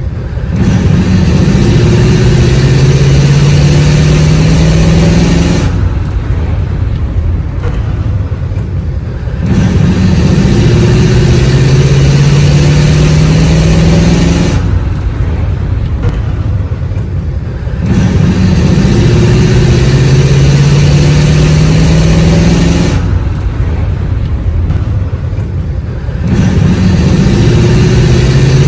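A 1939 car driving: its engine note rises steadily as it accelerates, then drops away to a low rumble for a few seconds before climbing again. The cycle repeats, with four rises.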